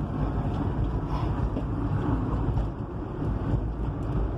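Peugeot Partner driving: steady low engine and road rumble heard inside the cabin, with wind buffeting on the microphone.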